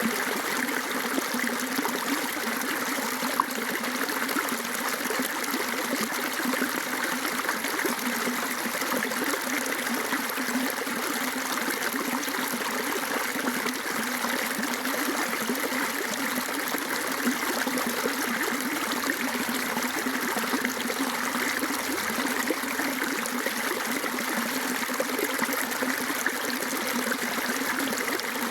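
Water flowing steadily in a stream or runoff channel, swollen after rain, with a constant rushing and trickling.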